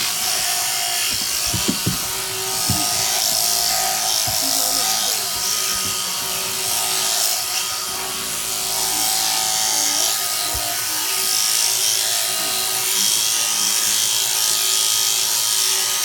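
Electric sheep-shearing handpiece running steadily, its motor and cutter buzzing as it clips through the fleece, with a couple of sharp knocks about two seconds in.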